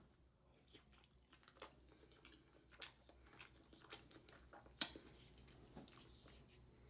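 Faint chewing and wet mouth clicks of someone eating fufu and egusi soup, scattered short clicks over a very quiet background, the sharpest a little under five seconds in.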